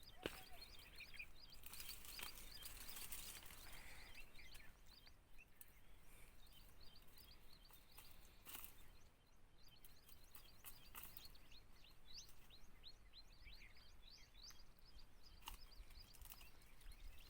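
Faint outdoor ambience with small birds chirping repeatedly in quick high notes, and a few soft clicks.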